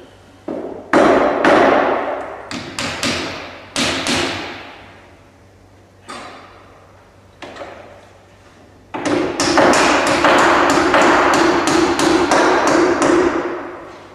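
Hammer blows on timber. About ten irregular strikes come first, then a quick steady run of about three blows a second with a ringing tone under it.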